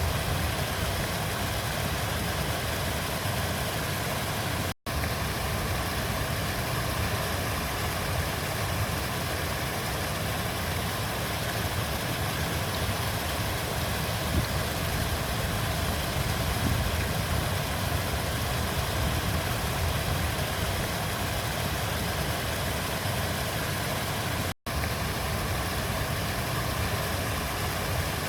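Flowing river water making a steady, even rush with a heavy low rumble. The sound cuts out for an instant twice, about five seconds in and again near the end.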